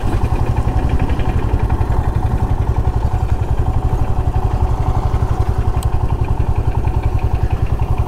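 Motorcycle engine running steadily at low revs with an even, rapid pulse as the bike rolls slowly forward.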